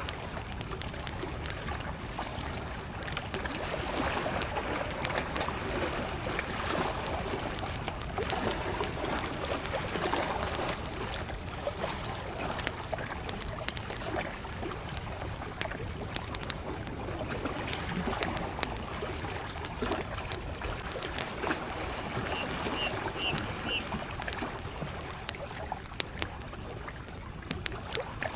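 Wood fire crackling with scattered sharp pops over small lake waves lapping at the shore. Near the end a bird gives about four short, high chirps.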